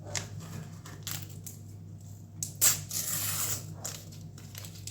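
Paper sticker-pack wrapper being handled and torn open: scattered light rustles, then a sharp crackle about two and a half seconds in that runs for about a second.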